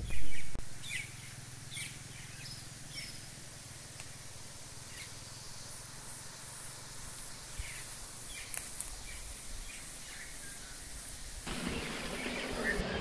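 Outdoor nature ambience: scattered short bird chirps over a steady high insect drone and a soft hiss. A brief loud sound comes right at the start, and a fuller, louder noise swells in near the end.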